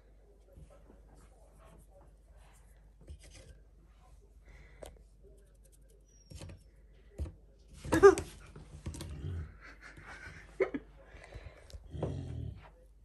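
Quiet room with faint shuffles and clicks. About eight seconds in comes one short, loud pitched vocal cry. A knock and low rustling movement follow near the end.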